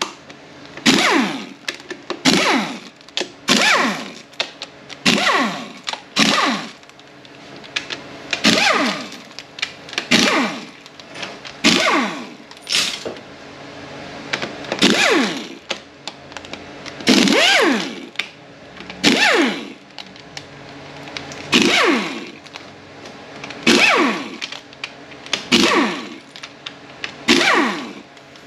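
Pneumatic air ratchet running in short bursts, about twenty of them one to two seconds apart, each with a whine that falls in pitch, as it spins out the 10 mm bolts holding a Ford 4F50N transmission's valve body and channel plate.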